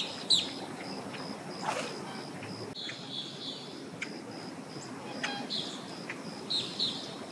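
Birds chirping in short scattered calls, two louder ones right at the start, over a faint high pulsing note and soft outdoor background noise.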